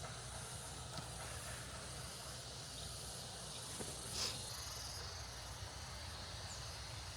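Faint, steady chorus of insects buzzing in a high hiss, with one brief sharper call or chirp about four seconds in.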